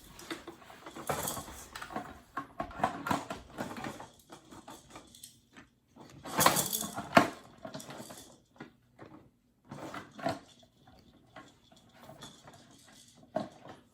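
Hard plastic toy-walker parts knocking and clicking together as the legs are fitted on, with a louder clatter about halfway through.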